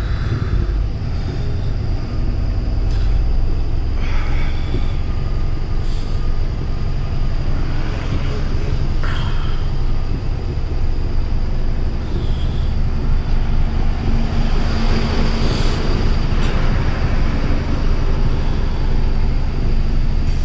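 Truck's diesel engine running steadily while driving, heard inside the cab as a loud, low rumble with a few brief hisses.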